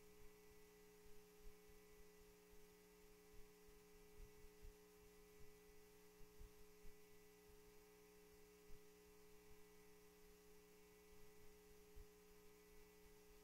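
Near silence with a faint, steady electrical hum, broken by a few faint low bumps.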